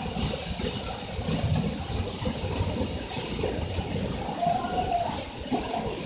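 Waterfall running: a steady rush of falling water with a low, uneven rumble beneath it.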